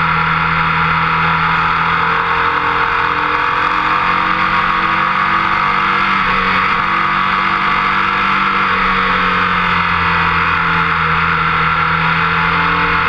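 Motorcycle running at speed, its engine note drifting a little in pitch, under heavy wind rush on a camera mounted by the front fork.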